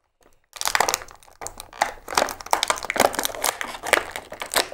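Plastic blister packaging crinkling and crackling as a toy figure is worked out of its moulded bubble. The crackle starts about half a second in and goes on in quick irregular bursts.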